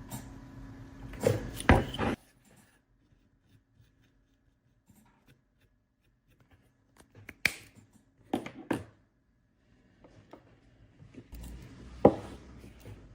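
Close handling noises of small parts and tools: a few sharp clicks and knocks, a cluster near the start, two or three around the middle and one near the end, with near silence between.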